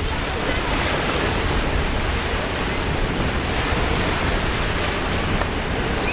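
Small waves breaking and washing up on a sandy shore: a steady rush of surf.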